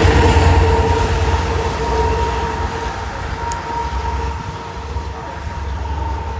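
A train rumbling as it moves away, the sound fading gradually, with a steady hum running through it.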